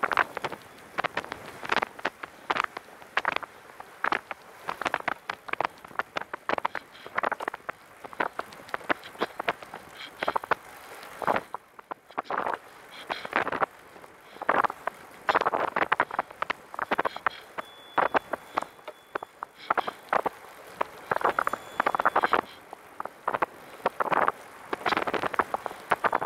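A Catrike 700 recumbent trike rolling fast on a paved trail, with a dense, irregular clatter of rattles and clicks from the frame and mounts over the pavement.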